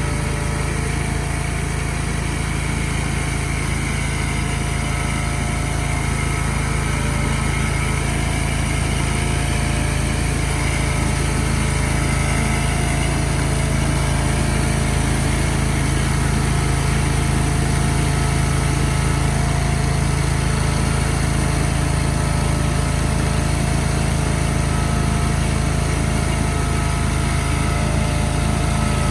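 A small engine running steadily at a constant speed, with no revving up or down.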